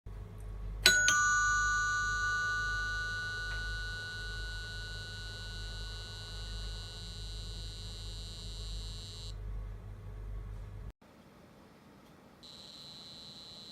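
House doorbell chime struck once: two bell-like notes a fraction of a second apart, ringing on and slowly fading. A steady high-pitched electronic whine sounds alongside, stops about nine seconds in, and returns near the end.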